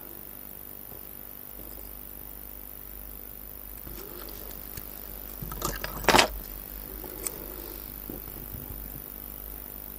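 Small handling noises of delicate watch work: faint clicks of tweezers and fingertips on a watch movement and its holder, with a short burst of clicks and a brief louder scuff about six seconds in.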